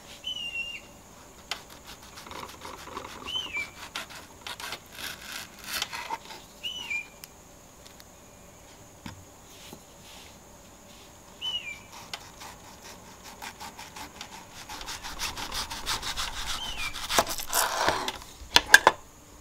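Small kitchen knife cutting through a tomato against a wooden cutting board: scattered soft cuts and board knocks. A denser, louder run of crackling and knocks comes near the end. A short high chirp recurs every few seconds behind it.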